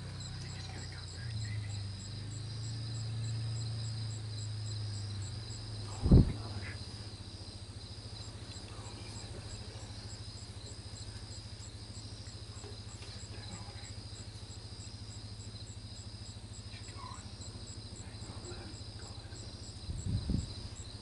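Night insects, with a faint high steady tone and an evenly repeating high chirp. A low hum runs for the first few seconds, a single sharp knock comes about six seconds in, and two or three softer bumps come near the end.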